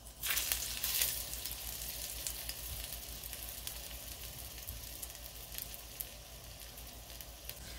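Whole garlic cloves and ginger sizzling in shallow hot oil in a nonstick wok, infusing the oil. The crackling is louder for the first second or so, then settles into a steady sizzle with scattered pops.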